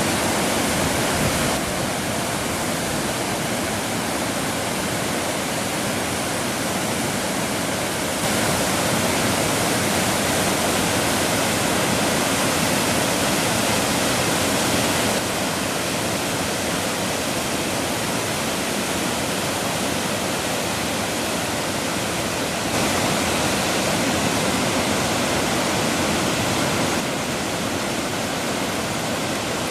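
Waterfall: a steady, dense rush of falling water. It swells slightly louder twice for several seconds at a time.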